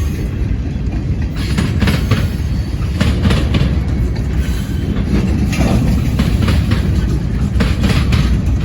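Freight train cars rolling past with a steady low rumble, the wheels clicking over rail joints now and then, some clicks coming in pairs.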